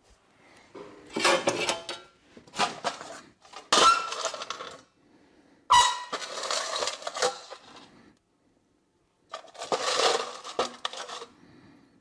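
Small steel parts clinking and clattering against a metal parts bowl as they are handled and rummaged through, in several separate bursts with pauses between.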